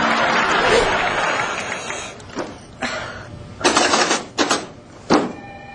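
A noisy crowd-like wash fading out over the first two seconds, then a snack vending machine being worked: a string of sharp clicks and clunks, uneven and about half a second to a second apart.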